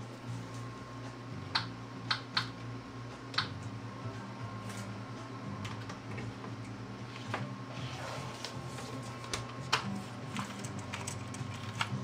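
Scattered light plastic clicks and taps from LEGO parts being handled, over a steady low hum.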